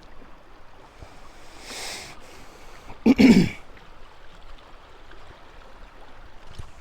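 A man clears his throat once, about three seconds in, over the faint steady rush of moving river water. A brief soft water swish comes just before it.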